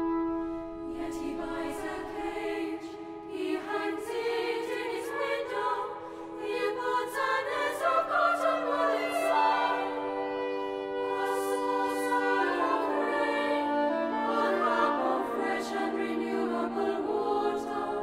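Choir of girls' and boys' voices singing a contemporary choral piece with organ accompaniment, the voices moving over long held notes that step down in pitch twice.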